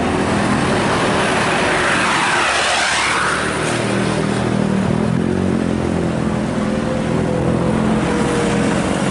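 Diesel coach bus driving past close by: its engine runs steadily, a rush of noise swells and fades as it passes about two to three seconds in, then engines keep running as it pulls away.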